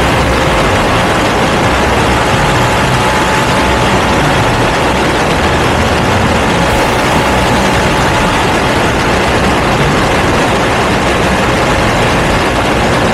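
Ducati V2 motorcycle with a Termignoni exhaust running at a steady pace, its engine blended into a loud, even rushing noise.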